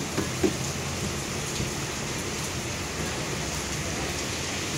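Steady hiss of steam and the stove burner beneath a woven bamboo steamer set over a metal pot. A few light knocks in the first half-second come from the steamer basket being handled.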